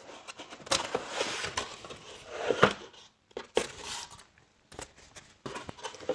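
Cardboard box and packaging being opened and handled by hand: rustling with scattered knocks and clicks, the sharpest knock about two and a half seconds in.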